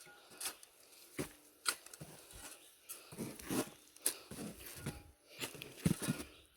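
Soil with chicken manure being stirred and worked: irregular crunching, rustling scrapes, about a dozen strokes unevenly spaced.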